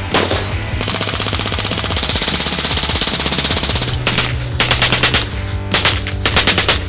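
Fully automatic machine-gun fire: one long unbroken burst of about three seconds starting about a second in, then two shorter strings of rapid shots. Background music with a steady bass line runs underneath.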